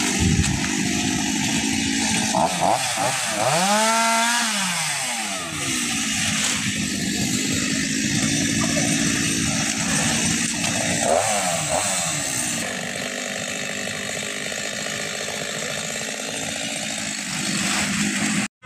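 Chainsaw running and revving up and down a few times while cutting up fallen trees, over a steady noisy background. The sound drops out briefly at the very end.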